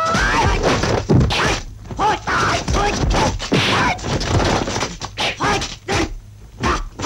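Kung fu film fight soundtrack: a rapid string of punch, kick and sword-swing whack sound effects, mixed with the fighters' short shouts and grunts, over background music.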